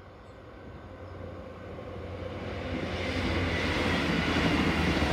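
Class 158 diesel multiple unit approaching and passing by, its low engine drone and rushing noise growing steadily louder and loudest near the end.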